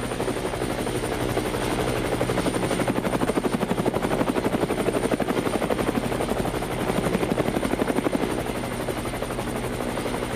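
A spinning rotor whirring steadily, with a fast, even pulsing chop like a helicopter's.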